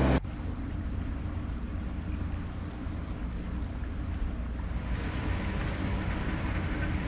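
A narrowboat's diesel engine running steadily while cruising, a low even hum. A louder passage cuts off abruptly just as it begins.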